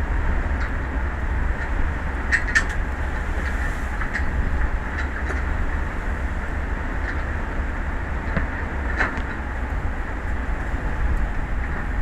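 Wind buffeting an outdoor microphone over the open sea: a steady, loud rumbling hiss, with scattered faint ticks and clicks.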